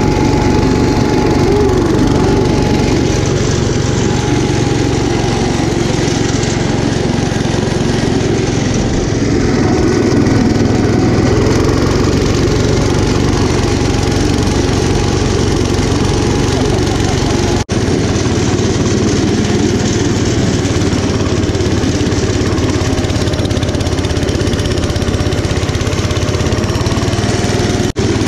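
Gravely Commercial 10A walk-behind tractor's single-cylinder Kohler K241 engine running steadily under load while its snowblower throws snow, with a faint wavering whine above the engine note.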